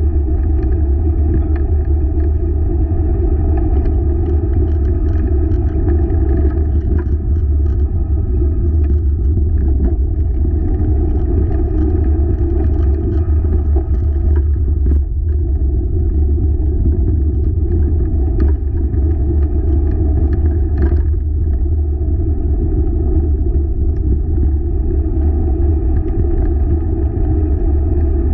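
Steady low rumble of a dog-pulled wheeled rig rolling fast along a trail, with scattered small rattles and clicks throughout.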